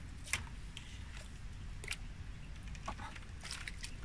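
Fishing rod and spinning reel being handled while a hooked fish is played: a few sharp clicks, spaced about a second and a half apart, over a low steady rumble.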